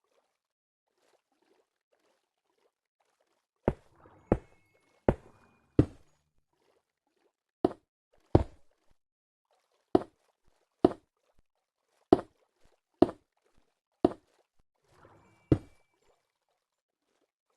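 A series of sharp single knocks, about a dozen, starting about four seconds in and coming roughly once a second at uneven spacing.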